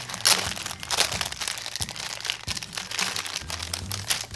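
Thin clear plastic bag crinkling as hands pull it off a pink plastic candy-mold sprue, with many quick irregular crackles.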